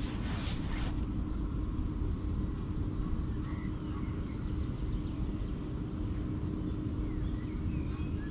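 Outdoor riverbank ambience: a steady low rumble with a constant low hum, a brief rustle in the first second, and a few faint chirps.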